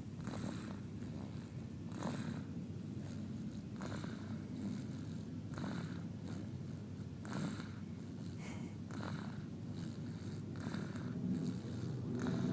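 Someone snoring: a steady low rattling rumble with a breath drawn about every second and a half to two seconds, seven times over.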